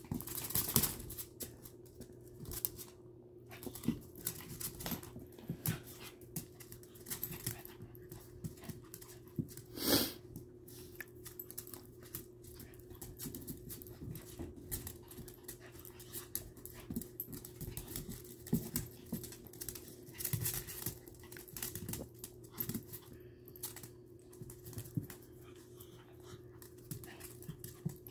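Two small dogs play-fighting on a hard floor: claws clicking and skittering, scuffling and panting, with one louder sharp sound about ten seconds in.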